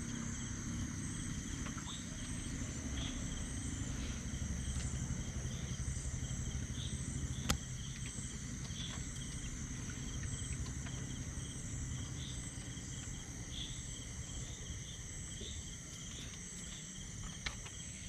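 Night insects, crickets among them, trilling steadily at a high pitch, with shorter chirps repeating roughly once a second. Under them runs a low rumble that fades in the second half, and there is a single sharp click about seven and a half seconds in.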